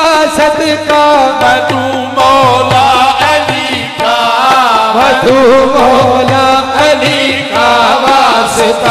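Qawwali performance: harmonium accompanying male singers, over a steady hand-drum beat.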